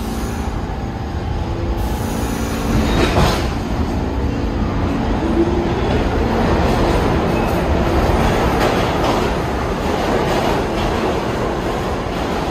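New York City Subway train running through the station, a steady rumble of wheels on rail with a sharp clack about three seconds in.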